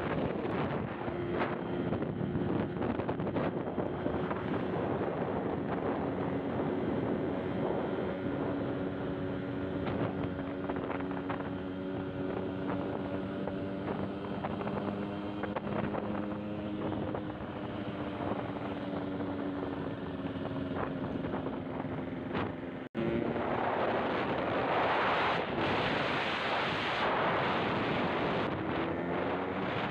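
Yamaha RX-King's two-stroke single-cylinder engine running at a steady cruise, its pitch drifting gently, with wind rushing over the microphone. The sound cuts out for an instant about three-quarters of the way through; after that the wind is louder and the engine note rises near the end as the bike speeds up.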